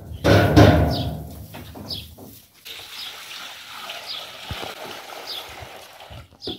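Water poured from a metal bucket into a steel bowl, loudest in the first second or so and then a steady splashing pour. A bird chirps about once a second throughout.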